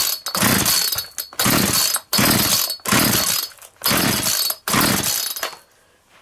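McCulloch Mac 441 chainsaw being pull-started, its recoil starter yanked about seven times in quick succession. The two-stroke engine cranks with each pull but does not catch.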